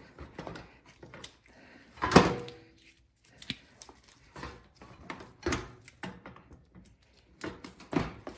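Irregular knocks and clatter of a snowblower's gas tank and its parts being handled as the tank is worked free and tilted up, with the loudest knock about two seconds in.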